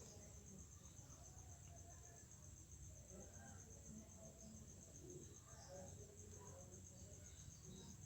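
Faint cricket chirping: a steady, high, evenly pulsing chirp over low room hum.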